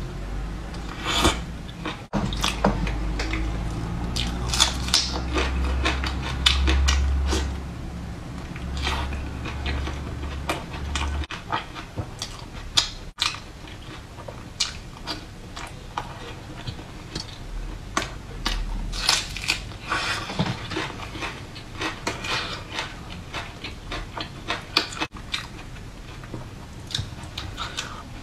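Close-miked eating: biting and chewing soft food from a tray of enoki mushrooms in chili sauce, heard as many short mouth clicks. A low hum runs under the first eleven seconds or so.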